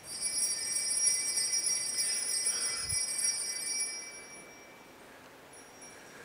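Altar bells (sanctus bells) shaken in a continuous jingling ring for about four seconds, then dying away. They mark the elevation of the consecrated host at Mass.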